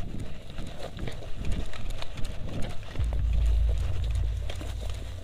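Footsteps crunching through dry leaves and undergrowth, with irregular rustles and snaps of twigs and branches brushing past. From about three seconds in there is also a low rumble on the microphone.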